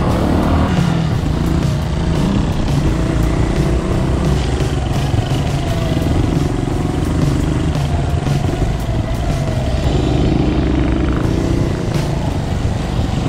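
Off-road motorcycle engines running as the bikes ride along a dirt trail, the engine pitch rising and falling with the throttle. A single sharp knock near the end.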